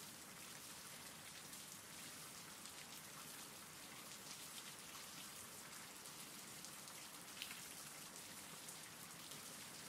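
Faint, steady rain ambience from a background rain-sounds track.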